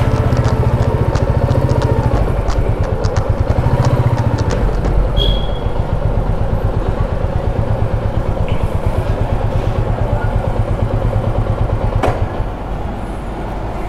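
Royal Enfield Meteor 350's single-cylinder engine running at low speed as the motorcycle rolls slowly, a steady rapid exhaust beat. A sharp click about twelve seconds in, after which the engine sound is a little quieter.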